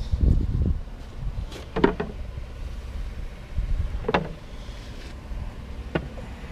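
Chairs being handled and moved: a dull thump near the start, then three sharp knocks about two seconds apart. Low wind rumble on the microphone throughout.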